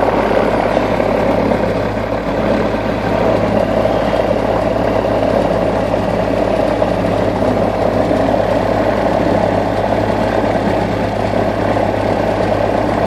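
Single-engine light aircraft's piston engine and propeller running steadily on the ground, heard from inside the cockpit as an even, unbroken drone.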